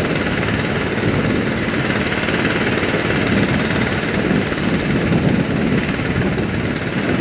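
Hydraulic post driver running steadily, hammering a steel fence post down into the ground.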